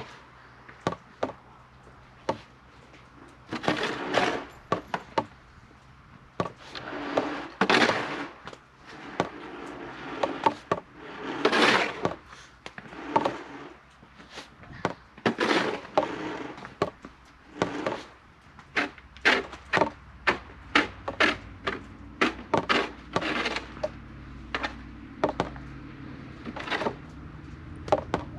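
Snow shovel scraping snow off a driveway in repeated strokes, each scrape about a second long, with sharp knocks of the blade in between.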